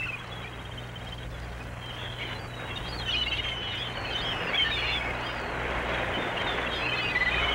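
Birds chirping in short scattered calls over a steady wash of outdoor background noise, with a low steady hum underneath.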